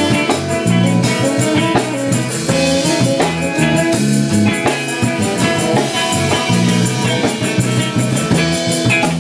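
A rock band playing an instrumental passage, with drum kit and guitar. Cymbals keep an even beat throughout.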